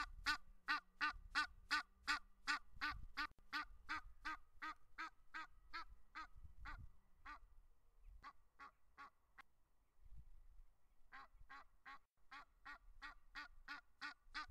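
Egyptian goose calling in a rapid run of harsh honks, about three a second; the calls thin out and mostly stop about seven seconds in, then start again about four seconds later.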